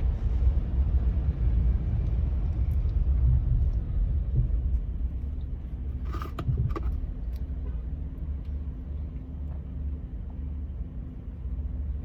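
Low, steady rumble of a car's engine and road noise heard from inside the cabin while driving, easing off gradually toward the end, with a few short clicks about six seconds in.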